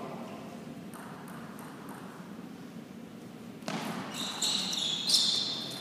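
Table tennis ball clicking a few times on the table and bats, then a sudden louder burst of noise in the last two seconds.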